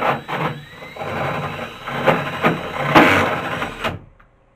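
Cordless drill driving a hole saw into wooden ceiling boards, cutting unevenly with several louder surges for about four seconds, then stopping.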